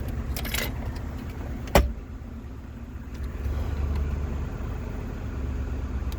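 Car engine idling steadily while it warms up just after a start, with one sharp thump about two seconds in.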